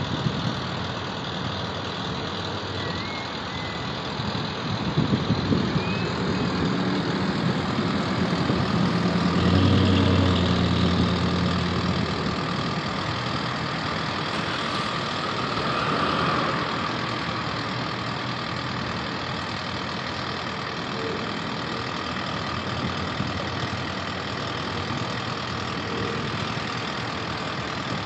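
Steady engine roar of a jet airliner passing overhead on approach, mixed with road traffic; it swells for a few seconds around ten seconds in.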